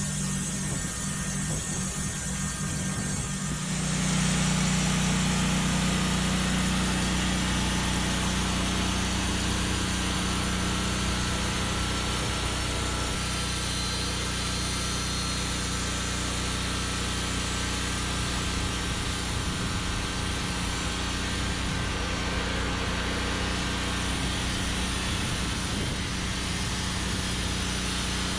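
Small gasoline engine of a Norwood Lumbermate Mark IV portable band sawmill running steadily; about four seconds in it gets louder and a hiss rises over the engine, then holds steady.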